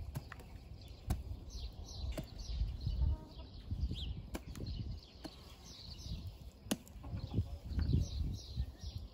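Small hand hoe chopping into soil, with sharp strikes about every second or two and dull thuds and scraping of loosened dirt between them. Birds chirp in the background.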